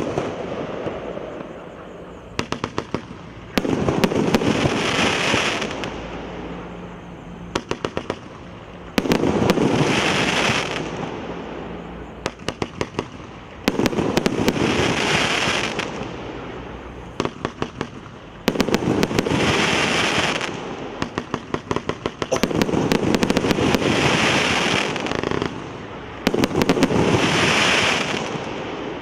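Fireworks battery (cake) firing in a repeating pattern: a quick string of sharp launch pops, then two or three seconds of shells bursting with crackle. The cycle comes about every four to five seconds, six times.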